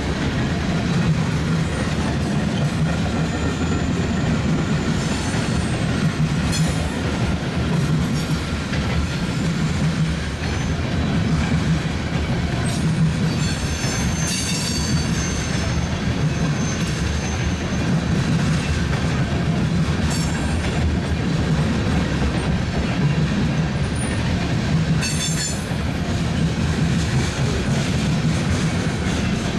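Long freight train's cars rolling past: a steady rumble of wheels on rail, with brief high wheel squeals about halfway through.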